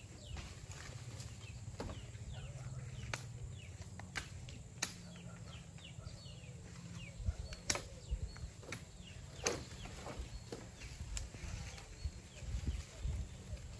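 Scattered sharp snaps and cracks of twigs, branches and dry bamboo poles as someone climbs on a pile of cut bamboo and pulls at tree branches. The snaps come more often and louder from about halfway through.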